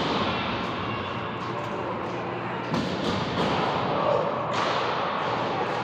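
Spectators and players chattering and calling out in a large echoing hall during a game, with a few sharp thuds about three, three and a half and four and a half seconds in.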